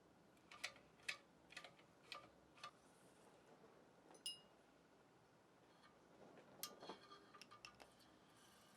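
Faint, scattered clicks and clinks of small metal parts being handled, with one part ringing briefly with a clear metallic tone about four seconds in.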